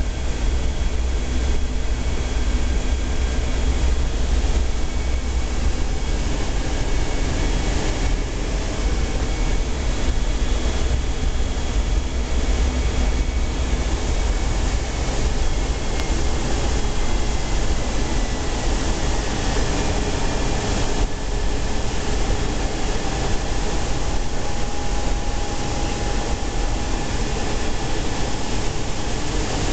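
Steady flight-deck noise of a C-17 Globemaster III in flight: a deep, unbroken rumble of its four turbofan engines and rushing air, with faint steady whining tones above it.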